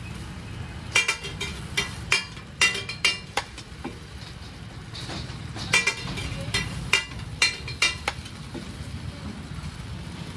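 Metal spatula clinking, tapping and scraping on a flat steel griddle (tawa) while egg kabab patties fry: sharp ringing strikes in quick clusters, a few in the first few seconds and again after about six seconds. Under them runs a steady low rumble.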